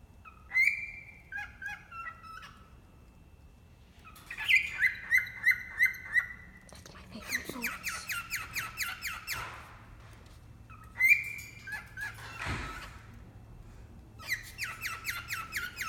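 Pet cockatiel calling in repeated bouts of rapid, evenly spaced chirping notes, about five bouts with short pauses between them.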